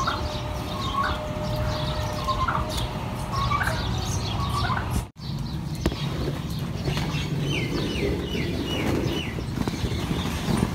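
Birds chirping in short calls about once a second over a steady low background noise. The sound cuts out for a moment about halfway. After the break comes a quick run of five falling chirps.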